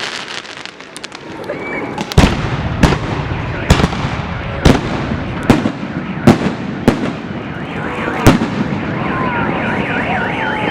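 Fireworks salute shells bursting overhead: eight sharp bangs, roughly one a second. Near the end a car alarm starts up with a fast rising-and-falling wail.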